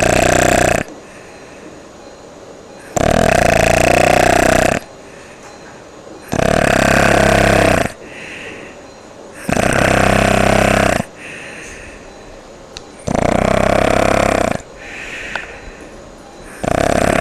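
A person snoring, with the uvula vibrating. Loud snores about a second and a half long come roughly every three seconds, with softer breaths between them.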